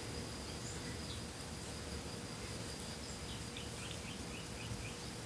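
Quiet room tone: a steady hiss with a faint high-pitched whine, and a quick run of faint high chirps about three seconds in.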